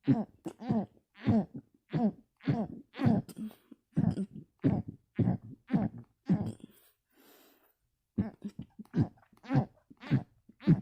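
A person's small closed-mouth burps in quick succession, about two a second, each short and falling in pitch, with a pause of a second or so just past halfway.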